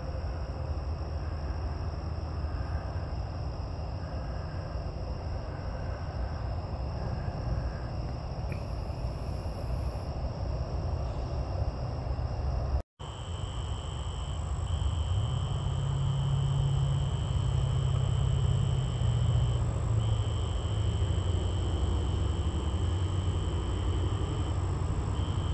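Outdoor night ambience: insects trilling steadily in high, unbroken tones over a low rumble. The sound drops out for an instant about halfway through, after which a louder, lower-pitched insect trill comes in and breaks off briefly a few times.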